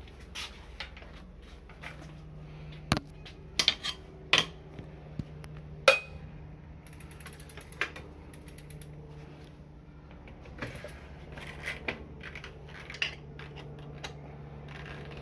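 Sharp metallic clicks and clinks at irregular intervals, the loudest about six seconds in, over a low steady hum.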